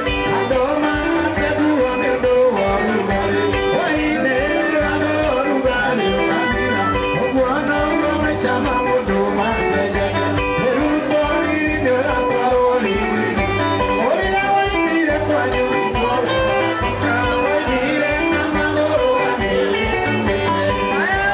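Live band music with electric guitar, keyboard and bass over a steady beat, and a man singing into a microphone.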